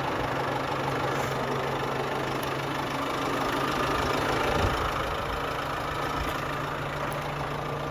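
Vehicle engine idling steadily, with a slight swell in level about four seconds in.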